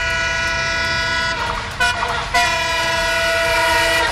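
Locomotive horn: one long blast, a brief toot about two seconds in, then a second long blast, over a low rumble.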